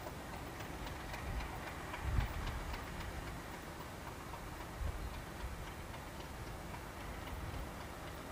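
Faint outdoor yard noise with light, irregular ticking over the first few seconds and two soft low thumps, about two and five seconds in.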